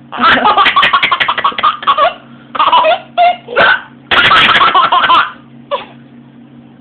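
A young child laughing in bursts of rapid, pulsing laughs, broken by hiccups. The laughter comes in three long runs and stops a little before six seconds, after a short hiccup-like sound.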